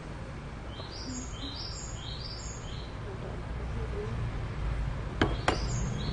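A small bird chirping in two short runs of quick high notes, one about a second in and another near the end. Two sharp knocks come about five seconds in, over a low steady rumble.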